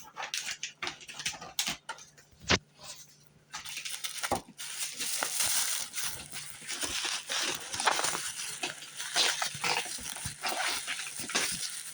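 Packaging being handled and unwrapped: a few clicks and taps, then from about four seconds in a continuous crinkling rustle of wrapping.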